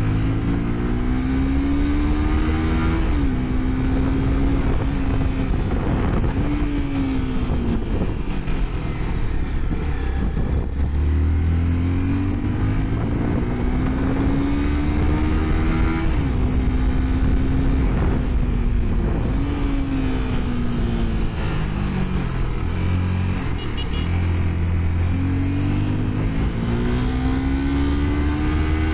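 Honda CBR250R's single-cylinder engine under way, heard from the rider's seat with wind rushing over the microphone. The revs climb and then drop sharply twice, at about three seconds in and again at about sixteen, as at an upshift. Twice more they fall off more gradually, as the throttle is closed for a bend, and they rise again near the end.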